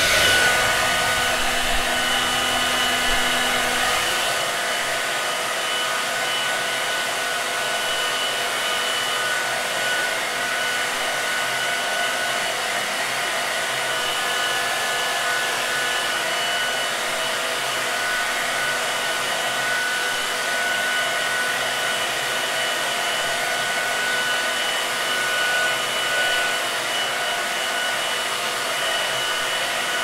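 Hair dryer running steadily: a constant rush of blown air with a high, unchanging motor whine. A low hum underneath drops out about four seconds in.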